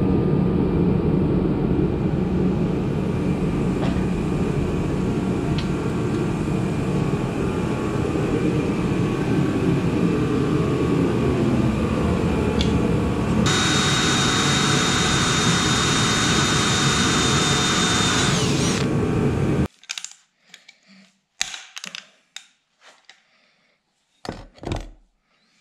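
A steady loud workshop roar, with a high power-tool whine joining for several seconds about two thirds of the way in. Then everything cuts off suddenly, leaving only a few light metal clicks and taps as a stainless dipstick tube and its new bracket are handled.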